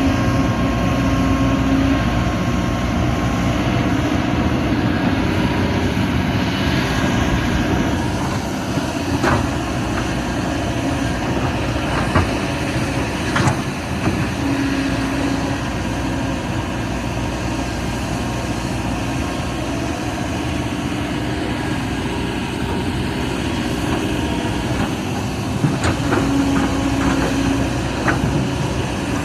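Excavator's diesel engine running steadily, with a few sharp metallic clanks and a short recurring tone.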